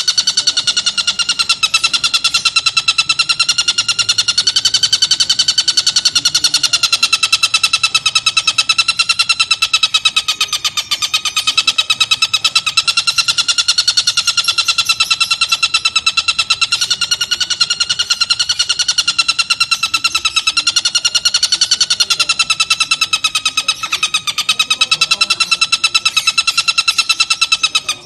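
Oriental dollarbird (tengkek buto) giving its long chattering call (ngekek panjang): a rapid, unbroken run of harsh notes on a steady pitch with a slight waver.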